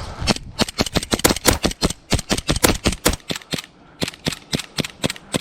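Gas-blowback airsoft pistols on HPA, fired in rapid strings of sharp cracks. A fast burst of about seven shots a second runs for roughly three seconds, there is a brief pause, and then slower steady shots follow at about four a second.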